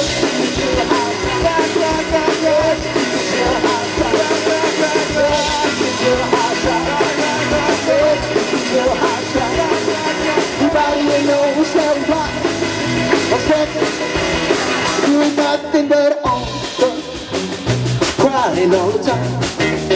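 Live rock band playing rock and roll on two electric guitars, bass guitar and drum kit, with a brief stop about sixteen seconds in before the band comes back in.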